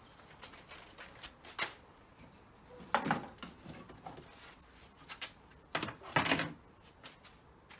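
Handling noises: light knocks and clicks, with two louder clattering scrapes about three and six seconds in.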